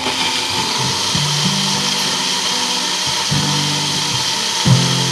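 Magic Bullet personal blender running steadily as it purées tomatoes and peppers into a paste.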